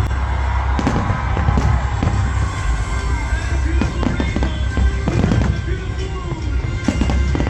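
Aerial fireworks going off in quick succession: repeated sharp bangs and crackles over a deep rumble, with music playing along.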